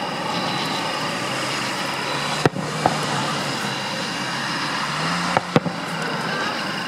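Distant aerial firework shells bursting: two pairs of sharp reports, about a third of the way in and again about three seconds later. Under them runs a steady background of noise with a low hum.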